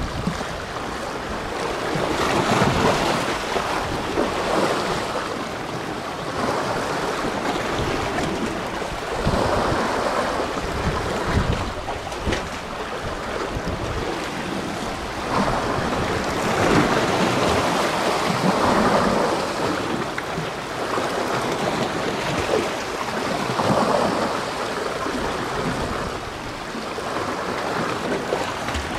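Sea waves washing in, swelling every few seconds, with wind gusting on the microphone.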